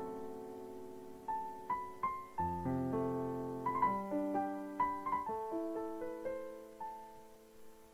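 Slow, gentle solo piano music: single melody notes over held chords, each note struck and left to ring and fade, growing quieter toward the end.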